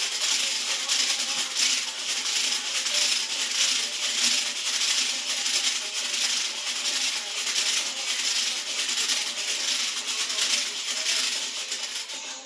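Smart weighted hula hoop spinning around the waist: its segmented links rattle continuously as the weighted ball swings round on its cord.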